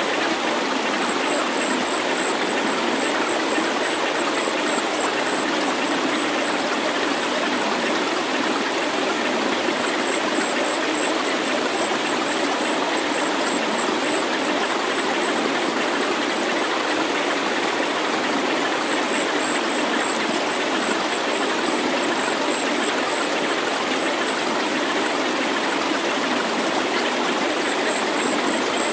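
Steady rushing noise with no low rumble beneath it, an electronically made healing-sound track, with a faint high tone pulsing on and off through it.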